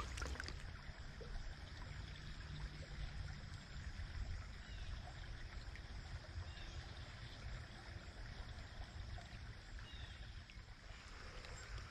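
Faint, steady flow of a small, shallow stream around the wading angler, with a low rumble underneath.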